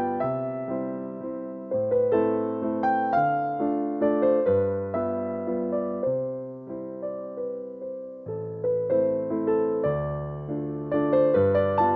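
Background music: a solo piano or electric piano playing a gentle, flowing melody over a repeating bass pattern.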